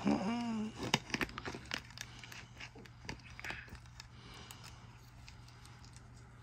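Scattered clicks, scrapes and crackles of a plastic back scratcher rubbing against a cat's fur and a leather chair as the cat grabs and bites at it, bunched in the first half. A low steady hum runs underneath.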